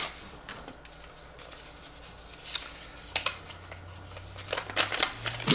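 Paper rustling and crackling in short scattered bursts with a few light taps, as a folded paper note is handled and worked open.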